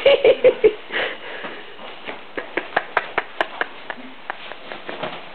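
A person's voice briefly at the very start, then a run of sharp, light knocks, several a second, that die away after about three and a half seconds.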